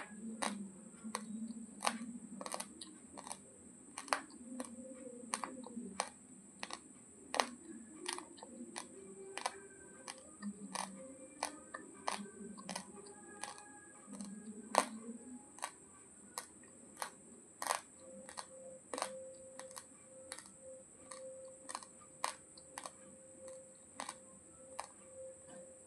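Raw basmati rice being chewed: sharp, irregular crunches of hard grains breaking between the teeth, about one or two a second.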